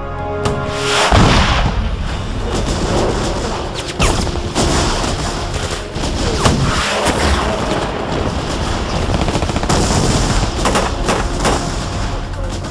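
Battle scene sound: continuous rifle gunfire, crackling rapid shots, with booms of explosions, the loudest blast about a second in.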